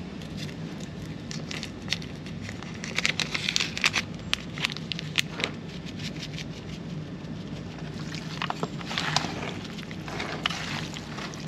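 Hands squishing and rubbing seasoning into raw chicken pieces: irregular wet crackling and squelching, busier in two stretches, over a steady low hum.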